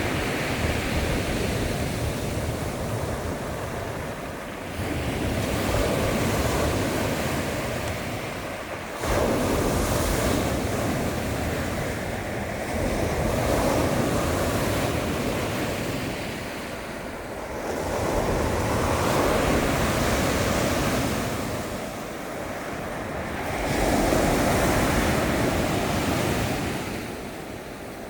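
Rough sea surf breaking on the shore, the waves surging in roughly every four to five seconds, with wind on the microphone.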